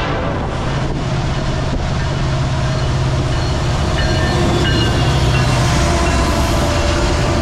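Norfolk Southern diesel freight locomotives approaching and passing close by, their engines chugging with a steady low rumble that grows louder as they draw near.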